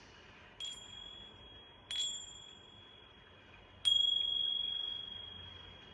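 A small high-pitched chime or bell struck three times, each strike leaving one clear ringing tone that fades slowly; the third strike is the loudest and rings longest. It is rung as an energy-cleansing ritual.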